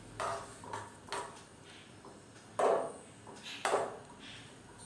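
A metal spoon mixing thick yogurt in a metal kadai, knocking and scraping against the pan a few times. The two loudest knocks come past the middle, about a second apart.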